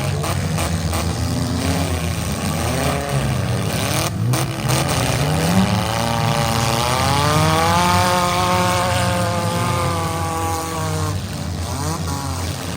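Several demolition derby cars' engines running hard over a steady low rumble. One engine revs up about halfway through, holds high for several seconds, then drops back.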